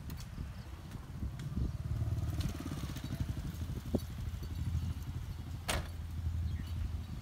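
Heavy diesel engine idling with a steady low rumble, with a brief sharp sound a little before the end.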